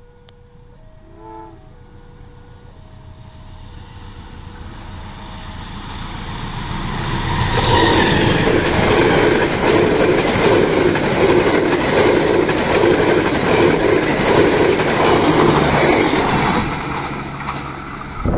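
Diesel-hauled KA Menoreh economy passenger train approaching and passing close by: its rumble grows over several seconds, then the wheels clatter loudly and rhythmically on the rails as the coaches go by, fading as the last coach draws away near the end. A short, distant horn note sounds about a second and a half in.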